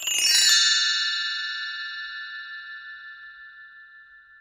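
A bell-like chime struck once, a shimmering attack followed by several clear high tones that ring on and slowly fade away.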